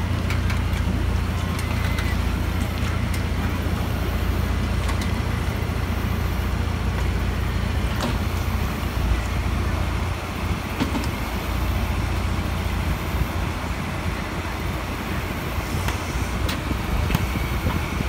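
Ford Raptor pickup truck's engine running steadily at low speed, a low rumble, as the truck reverses a trailer into the water.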